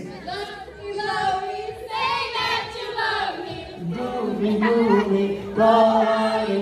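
A group of girls and young women singing a line of a love song together, unaccompanied.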